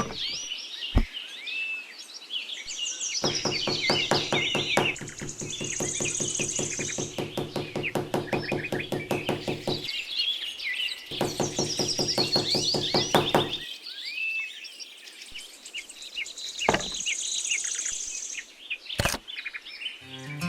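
Small birds chirping and twittering throughout, with a rapid, even mechanical knocking over a low hum in two stretches, one several seconds long from about three seconds in and a shorter one after a brief pause; a few single sharp clicks stand out.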